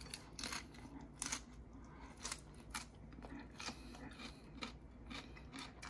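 Faint chewing of a mouthful of shredded red cabbage: a string of short crunches, roughly two a second.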